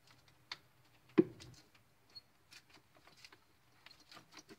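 A few light clicks and taps, with one sharp knock about a second in, as a disconnected car battery cable and its terminal clamp are handled and moved.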